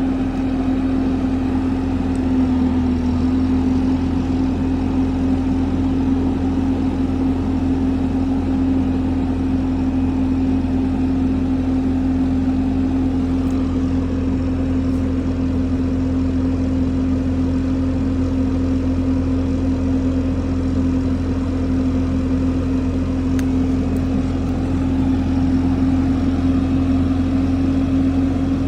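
An engine idling steadily, with a constant hum over a low rumble.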